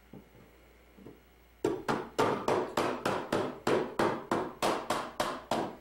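A toddler's plastic toy hammer striking a pound-a-ball toy: two light taps, then from about a second and a half in a fast run of sharp blows, roughly three or four a second.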